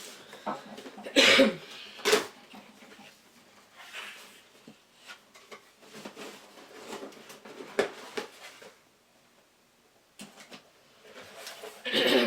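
A CPU retail box and its plastic packaging being opened and handled: irregular rustling, scraping and clicks, loudest about a second in, again a second later, and near the end.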